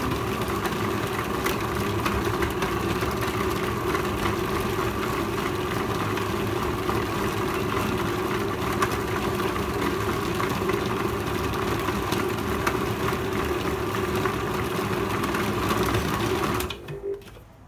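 A small electric motor runs steadily at one speed with a constant hum and whir, then switches off abruptly near the end.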